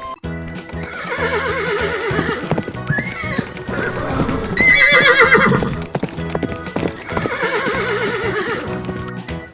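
Horse whinnying three times, with hooves clip-clopping throughout. The middle whinny, about halfway through, is the loudest.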